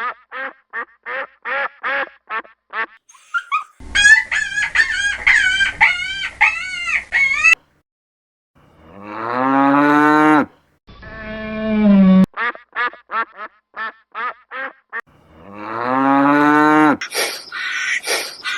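Farm animal calls played one after another: rapid runs of short honking calls, a flock honking together in a dense chorus for a few seconds, and two long mooing calls that rise in pitch.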